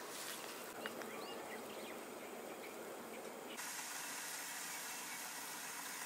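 Faint outdoor morning ambience: a steady hiss with a few short bird chirps in the first second or so. About three and a half seconds in the hiss turns brighter.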